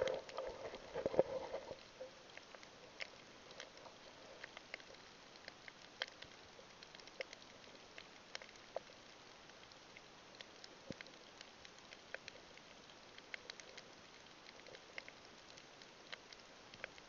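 Faint underwater sound over a coral reef: a low steady hiss with scattered sharp clicks and crackles at irregular times. In the first two seconds, louder bubbling and churning water as the camera moves under the surface.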